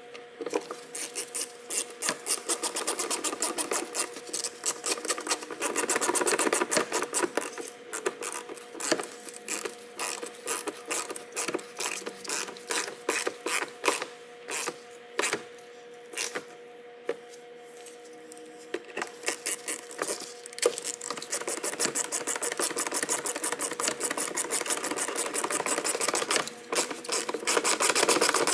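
Hand ratcheting screwdriver with a socket bit clicking as it turns fasteners into a plastic bumper panel. The clicks come in quick runs near the start and in the last third, with slower single clicks in between. A steady hum runs underneath.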